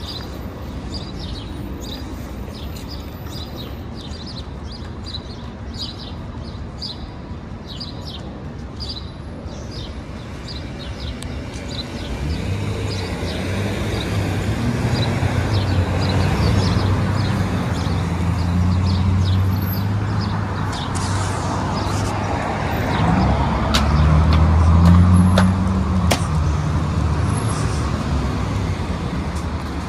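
Street traffic: vehicle engines passing and pulling away, growing louder from about twelve seconds in and loudest a little before the end. Small birds chirp repeatedly in the first part.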